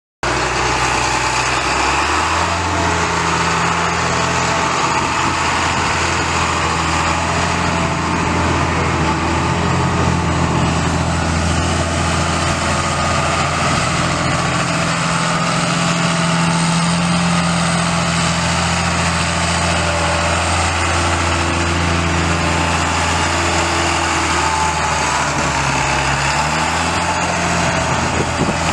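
John Deere 8100 tractor's 7.6-litre six-cylinder turbo diesel running steadily, its pitch rising a little near the end.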